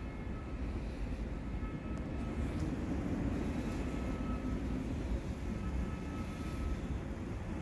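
Steady low rumble of a rail platform, with a faint thin hum above it, swelling slightly about three seconds in.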